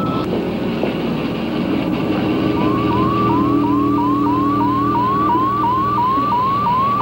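Electronic science-fiction sound effect for an alien seed pod. A low steady drone is joined, about two and a half seconds in, by a repeating rising electronic bleep about three times a second.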